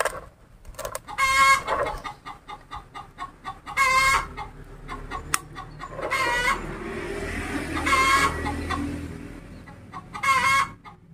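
A chicken calling over and over: five short, warbling calls about two seconds apart.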